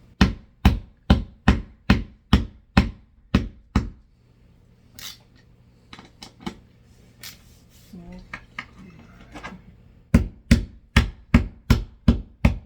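Hammer blows in a steady run of about ten strikes, roughly two to three a second. Then a pause with a few lighter knocks and handling sounds, and another run of strikes near the end.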